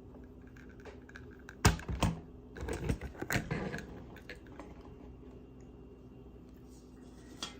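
Small objects handled on a hard surface: two sharp knocks about two seconds in, then about a second of clicking and rattling, and one faint click near the end.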